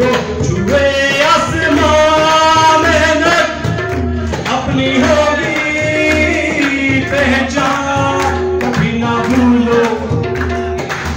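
Male singer performing a Pakistani national song (milli naghma) into a microphone, accompanied by tabla, with long held, wavering notes.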